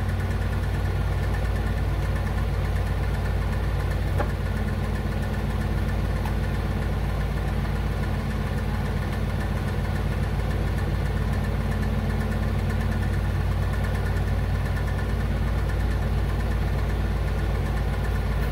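Steady low machine hum, unchanging throughout, with a faint click about four seconds in.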